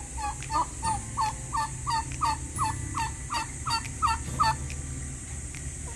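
Domestic turkeys calling in a run of about a dozen short, evenly spaced calls, roughly three a second, that stop about four and a half seconds in.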